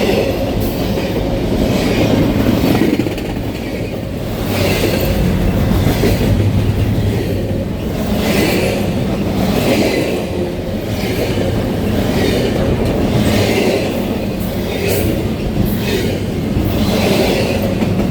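CN freight train cars rolling past, wheels clacking over rail joints in a clatter that repeats every second or two over a steady low rumble.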